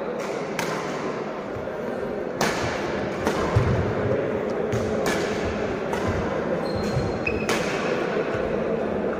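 Badminton rally: a racket striking a shuttlecock about four times, roughly two and a half seconds apart, with low thudding footsteps on the court between the hits, over a steady murmur of the hall.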